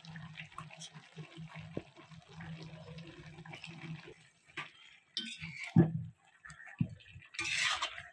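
Perforated metal spatula knocking in a black kadai, then scraping and squishing as it stirs spice-coated turkey pieces near the end, over a faint low hum.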